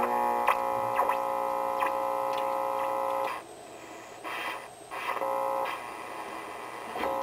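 Crosley Model V one-tube radio being tuned, heard through a two-stage amplifier and a phonograph horn: a steady buzzing whistle with overtones that breaks off after about three seconds into static and crackle, then comes back twice.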